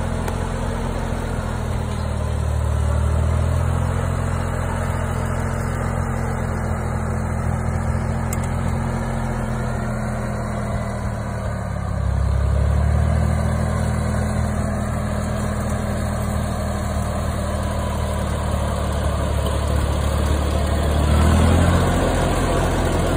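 Ford 4000 tractor's three-cylinder engine running steadily, swelling louder three times as the loader works.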